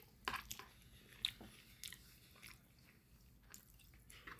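A person chewing a mouthful of spicy food: faint, wet mouth clicks and smacks, scattered and irregular.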